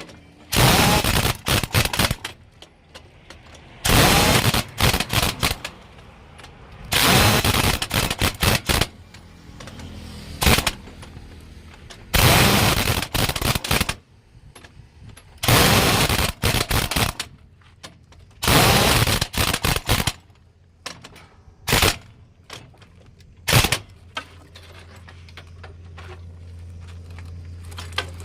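Pneumatic impact wrench running in repeated bursts of rapid hammering, each one to two seconds long and a few seconds apart, as it works the wheel nuts of a truck wheel. A low steady hum comes in near the end.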